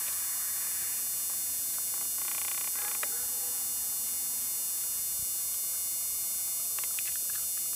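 Steady electrical hum and hiss on the recording's sound track, with a faint short buzzy sound about two to three seconds in and a few faint clicks near the end.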